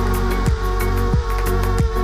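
Electronic music with a steady beat and sustained synth chords.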